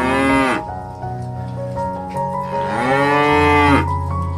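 Water buffalo mooing twice: a short call at the start and a longer one about two and a half seconds in, each rising and then falling in pitch, over a steady musical background.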